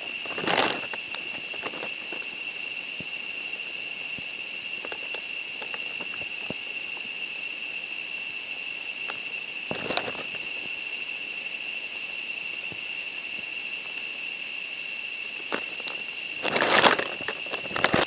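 Steady high-pitched insect chorus with a strong constant whine and several fainter high tones layered over it. Brief rustles or bumps come about half a second in, around ten seconds in, and a louder one near the end as the view shifts.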